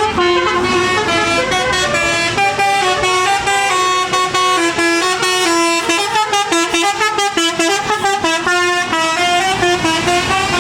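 A tour bus's telolet musical air horn playing a melody: several horn notes sound together and step from pitch to pitch over a held low note, with a quicker run of short notes in the second half.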